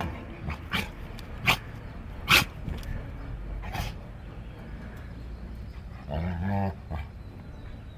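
Dog barking: four short, sharp barks over about three seconds, then a lower, drawn-out whine with a wavering pitch about six seconds in.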